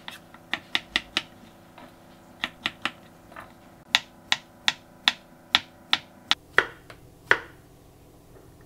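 Chef's knife chopping bell pepper and then cucumber on a wooden cutting board: a string of sharp, uneven chops that stops about a second before the end.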